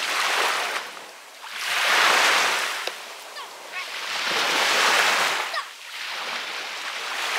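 Small Baltic Sea waves breaking and washing up a sandy shore, the surf swelling and fading about every three seconds.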